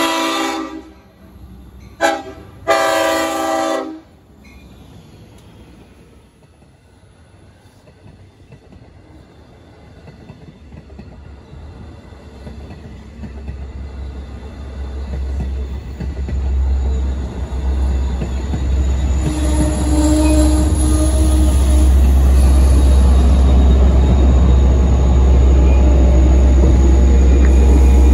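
Long Island Rail Road push-pull train at a grade crossing: the horn sounds three blasts in the first four seconds, the last two a short then a long, as a crossing warning. Then the train rolls past with a rumble that builds steadily and is loudest near the end as the DM30AC diesel locomotive pushing at the rear draws level.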